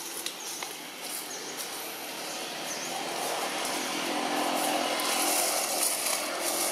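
Outdoor background noise: a steady hiss that grows louder through the second half, with a few faint high chirps near the start.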